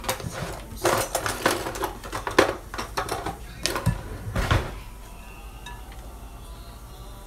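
Metal beaters of an electric hand mixer knocking and clinking against a glass mixing bowl of beaten egg, a string of sharp taps with two heavier knocks, stopping about five seconds in.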